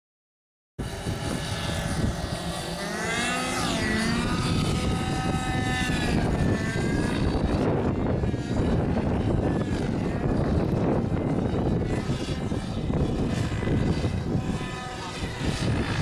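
Nitro glow-engine RC helicopter (JR Vibe 50) running at flying speed, its engine and rotor whine gliding up and down in pitch as it manoeuvres, over heavy wind noise on the microphone.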